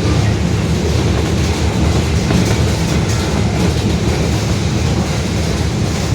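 Rear differential of a Mercedes-Benz OF-1721 BlueTec 5 city bus roaring very loud as the bus drives, a steady low drone mixed with running and road noise.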